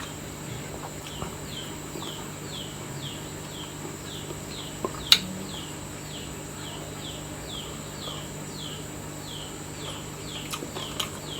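A small animal chirping steadily, about two short falling chirps a second, over a steady high-pitched whine. There is one sharp click about five seconds in.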